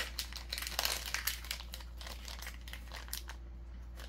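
Small pin packaging of paper card and plastic crinkling and rustling as it is unwrapped by hand, busy for about two seconds, then only a few faint crackles.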